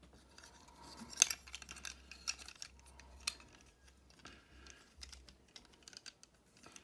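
Irregular small clicks and taps of plastic parts on a posable plastic action figure being handled and moved, with one sharper click about a second in.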